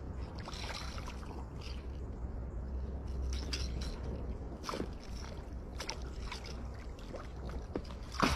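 Water sloshing and splashing, with scattered short clicks and knocks over a steady low rumble.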